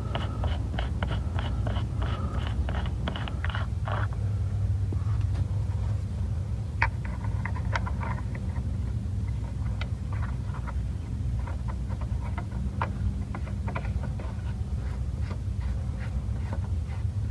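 Light metallic clicks and taps of engine parts being handled by hand over a steady low hum. A quick regular run of clicks lasts for the first four seconds, then single clicks follow at scattered intervals.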